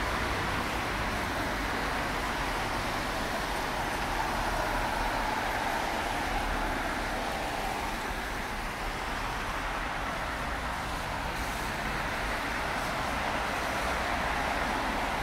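Steady road traffic noise: vehicles running and passing, with no single event standing out.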